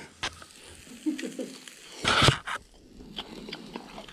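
A person chewing a bite of grilled, overnight-dried surf smelt: small wet mouth clicks, a faint closed-mouth hum about a second in, and a short louder rustle a little past halfway.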